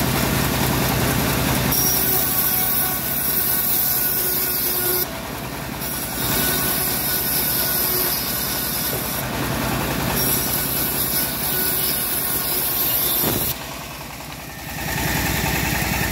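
Homemade engine-driven bandsaw mill running, its blade cutting a teak slab in three stretches with short lulls between, a loud high hiss of the cut over the steady throb of the drive. The cutting stops about three and a half seconds before the end.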